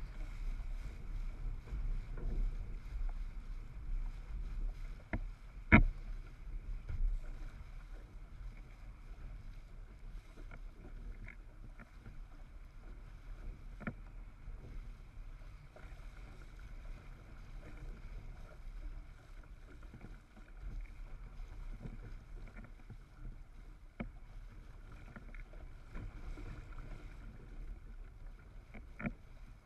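Windsurf board under sail: a steady rush of wind and water with a fluctuating low rumble, broken by one sharp knock about six seconds in and a few fainter ticks later.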